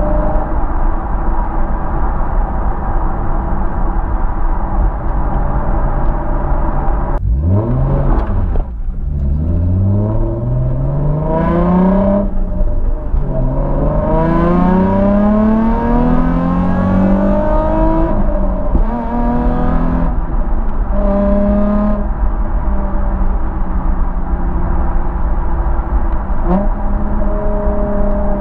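Nissan 350Z Roadster's 3.5-litre V6 exhaust, through a Scorpion un-resonated cat-back with Y-pipe and high-flow sports cats, heard from the rear deck while driving. It cruises steadily, then about seven seconds in pulls up through the gears, its pitch climbing in three or four rising sweeps with brief breaks at the shifts. It then settles back to a steady cruise.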